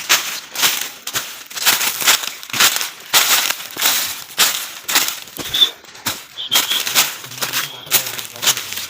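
Footsteps crunching through dry leaves and forest undergrowth, about two steps a second, at a steady walking pace.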